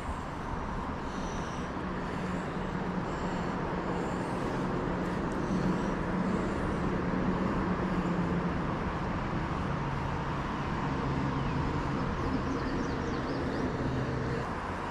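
Steady rush of river water with a low engine hum from a passing vehicle, which swells and then fades about halfway through.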